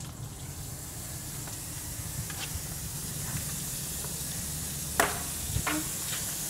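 Water hissing steadily from a garden hose onto a wet tiled floor, with a sharp click about five seconds in.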